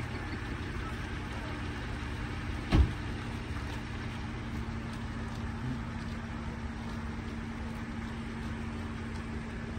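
Steady low hum of a running vehicle engine, with one sharp thump about three seconds in.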